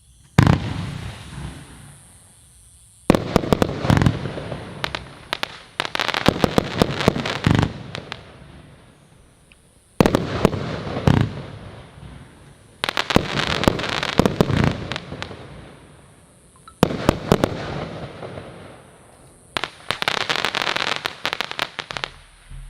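Funke Chrys Rain F1 firework going off: a series of sharp bangs a few seconds apart, each followed by dense crackling that fades away. A faint steady high-pitched whine runs underneath.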